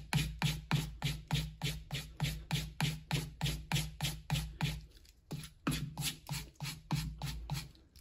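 Victorinox pocketknife blade stropped on a leather strop charged with green polishing paste: quick, even back-and-forth strokes, about four a second, growing fainter in the second half and stopping at the end.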